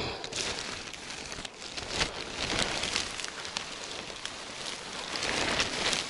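Plastic bag crinkling and rustling as it is handled, a dense run of crackles that swells several times, mixed with ferns and tall grass brushing past.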